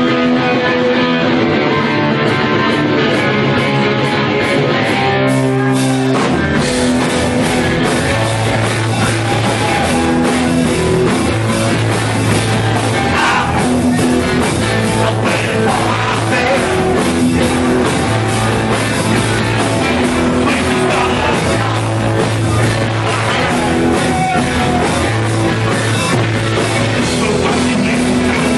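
Live punk rock band playing with electric guitars and drums. About five seconds in the full band comes in, with drums and cymbals.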